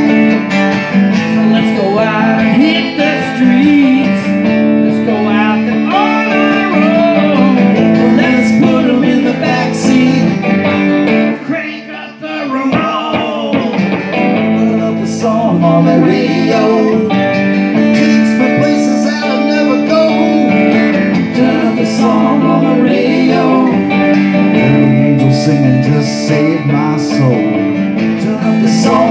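Live band playing: acoustic guitar strumming with an electric guitar, the music dipping briefly about twelve seconds in.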